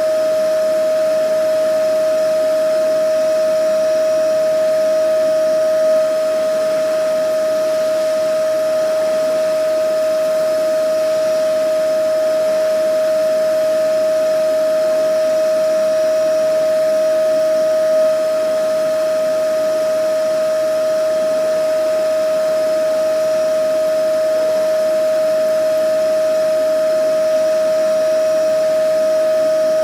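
Vacuum cleaner motor running steadily: a constant whine over an even rushing hiss, with a slight swell in loudness about every twelve seconds.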